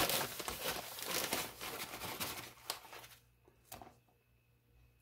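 Plastic bag of powdered sugar rustling and crinkling as a measuring cup scoops from it, for about three seconds. Then it goes quiet apart from one light tap near the end.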